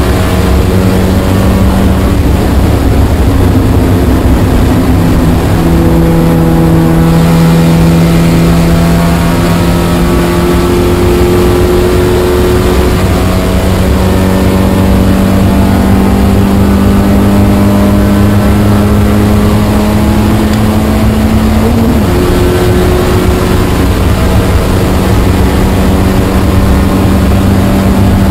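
Spec Miata's four-cylinder engine heard from inside the cabin, pulling under load. Its note climbs slowly for most of the stretch, then drops sharply with an upshift about three-quarters of the way through and holds steady again. Road and wind noise rush under it throughout.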